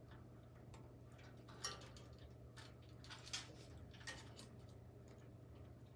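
Near silence with a few faint clicks from electrical wire connectors being handled and joined together.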